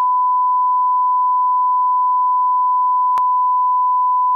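Television colour-bars test tone: one loud, steady, unbroken beep at a single pitch, with a short click about three seconds in.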